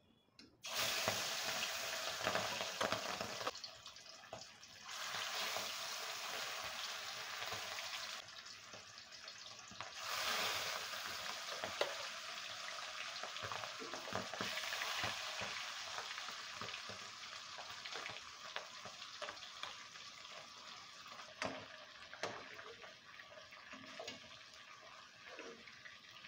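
Spice-coated fish pieces sizzling as they fry in hot oil in a steel kadai, the sizzle starting suddenly as the fish goes in about a second in, flaring up again around five and ten seconds in, then slowly easing. A metal spatula stirs and turns the pieces in the pan.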